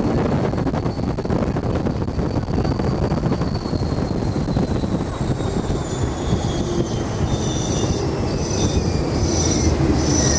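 Test Track ride vehicle running at speed: a heavy rumble under a high whine that falls steadily in pitch as the car slows. In the last few seconds, short high-pitched tones repeat a little more than once a second.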